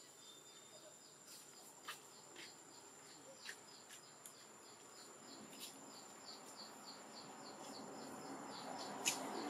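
Insects chirping in an even rhythm, about three chirps a second, over a steady high whine. A few sharp clicks stand out, and a rushing noise grows louder toward the end.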